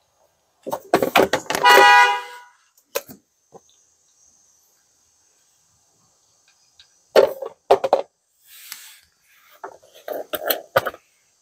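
Socket ratchet clicking as the transmission drain plug is loosened, ending in a short, loud honk-like tone about two seconds in. Later come more clicks and knocks as the plug is worked by hand.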